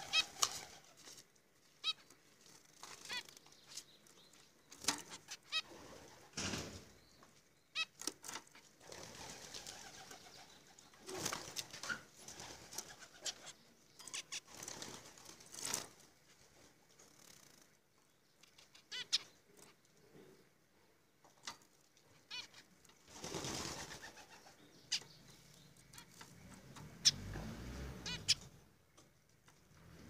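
Zebra finch in a wire cage: scattered wing flutters and small clicks of the bird hopping on the wire and plastic, with a few short high chirps.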